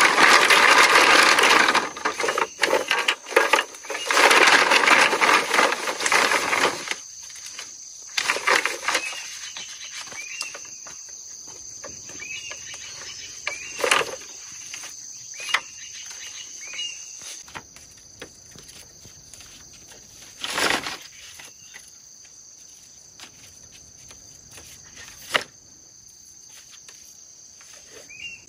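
Green bamboo poles rustling and clattering against each other as they are gathered into a bundle, loud for the first several seconds, then a few single knocks of pole on pole as the bundle is tied. A steady high buzz of insects runs underneath.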